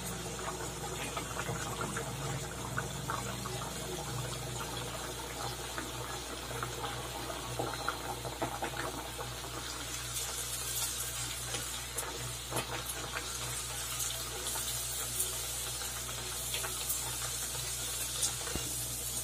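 A puri deep-frying in hot refined oil in a steel kadai: a steady sizzle with scattered small crackles and pops.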